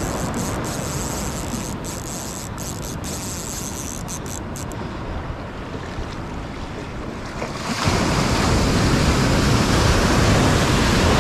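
Ocean surf washing in the shallows, then a wave breaks close by about eight seconds in and its rush of white water is suddenly much louder.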